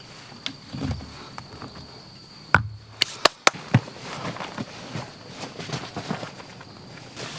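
Footsteps on the ground, with a quick run of four or five sharp clicks about halfway through and a thin steady high tone behind.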